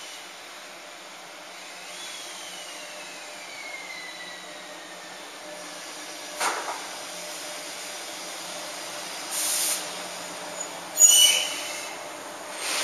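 EF66 electric locomotive creeping in slowly, with a falling whine as it slows, a single sharp clank about six seconds in, a brief burst of air hiss, and a short, loud high-pitched squeal about eleven seconds in.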